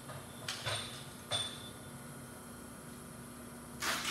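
A few light clinks and knocks in the first second and a half, two of them with a short high metallic ring, then a louder scraping noise near the end.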